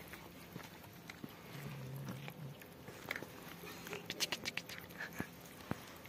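Cat chewing and biting pieces of cooked chicken from a plastic tray, with a quick run of wet chewing clicks about four seconds in. A brief low drone sounds near two seconds.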